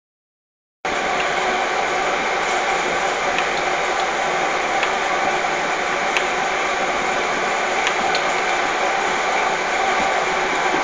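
Steady, even rushing noise, like the air handling of an indoor shooting range, with a few faint light clicks scattered through it as ammunition is handled at the bench. No gunshots.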